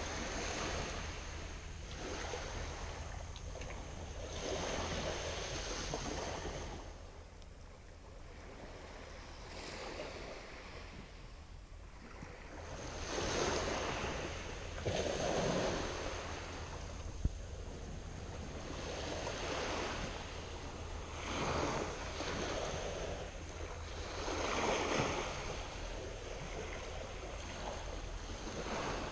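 Sea waves washing on the shore, swelling and fading in irregular surges a few seconds apart, with wind rumbling on the microphone. One sharp click sounds a little past halfway.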